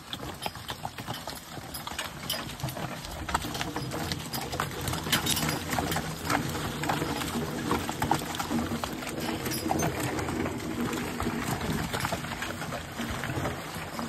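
Team of two Belgian draft horses walking in harness, hooves clopping, with irregular clicks and clanks throughout.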